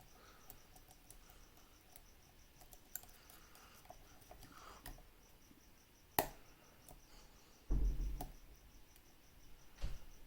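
Small metallic clicks and taps of a half-diamond pick and prybar tension tool working the pins of a Gen 1 Bilock lock. A sharper click comes about six seconds in, and a loud dull thump a little before eight seconds.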